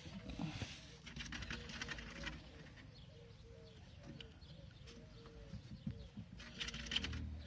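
Faint bird cooing: a steady run of short, soft, arched notes, several a second, with brief rustling near the start and again near the end.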